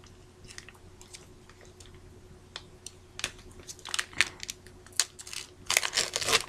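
Foil trading-card pack wrapper crinkling and crackling as it is handled and torn open, with scattered crackles that come thickest near the end.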